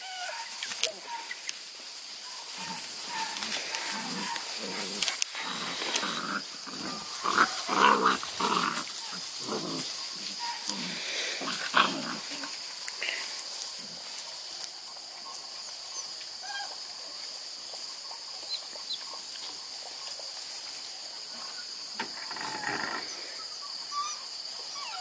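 A litter of Redbone coonhound puppies yipping, whining and grunting as they play, busiest in the first half, then only a few faint squeaks. A steady high insect trill runs underneath.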